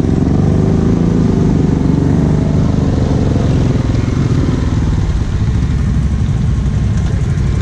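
ATV engine running steadily close by, its pitch wavering up and down a little in the first few seconds, then settling into a steady low drone.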